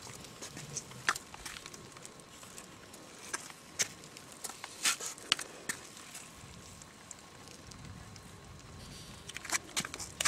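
Scattered sharp clicks and crackles at uneven intervals over a faint steady hum, with a cluster of clicks near the end.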